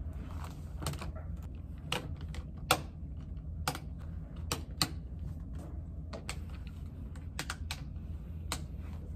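Keys pressed on a small laptop keyboard: sparse, irregular clicks about once a second, over a steady low hum.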